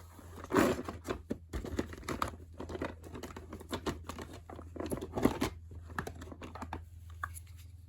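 Irregular rustling, crinkling and clicking of small hand-handled items: plastic heat-shrink tubing being worked up a metal pick wire. A steady low hum sits underneath.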